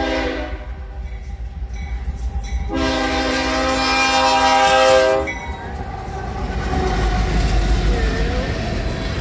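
BNSF diesel locomotive horn sounding for a grade crossing: a short blast, then a long blast of about two and a half seconds. The horn comes from the lead GE AC44CW. Afterwards the passing locomotives' diesel engines and wheels on the rails rumble louder as they go by, with a few faint squeals near the end.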